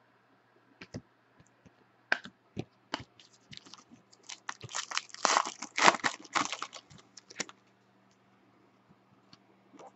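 Wrapper of a Panini basketball trading card pack being torn open and crinkled by hand. A few scattered crackles, then dense crinkling and tearing from about four seconds in, lasting about three seconds.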